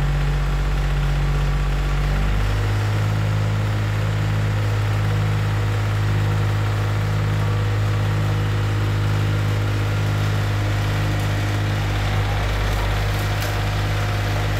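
Wado SS215 tracked snowblower's engine running steadily while the machine clears and throws snow. The engine note changes about two and a half seconds in, then holds steady.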